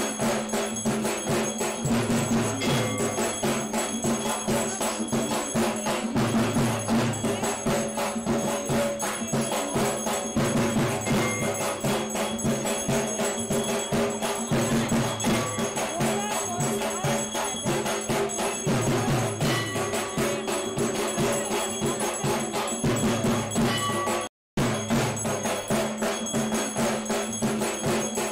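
Background music with a steady, fast percussive beat and bell-like tones, broken by a split-second gap of silence near the end.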